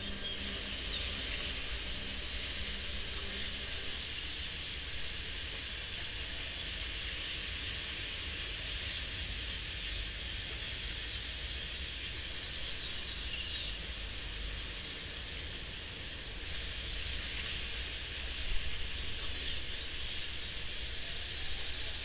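Electroacoustic performance built from rural field recordings: a steady hiss-like ambient texture over a low rumble, with faint held tones in the first few seconds and a few short high chirps scattered through it.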